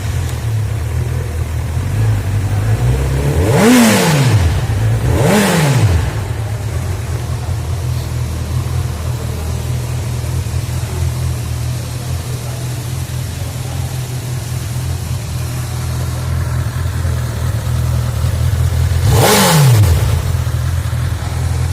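Honda CB1000R's inline-four engine idling with three quick throttle blips, two close together about 4 and 5.5 seconds in and one near the end, each revving up and dropping straight back to idle.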